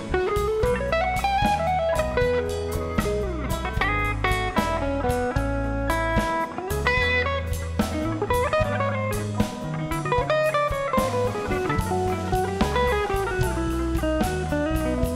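Blues band playing live: an electric guitar solo with bent notes that slide up and down and quick runs, over bass guitar and a drum kit.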